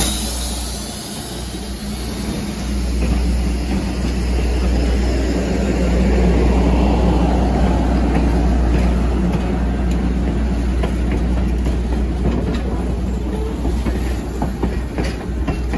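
Wooden passenger coaches rolling past close by, their steel wheels rumbling steadily on the rails. A faint wheel squeal fades out at the start, and a few clicks come near the end.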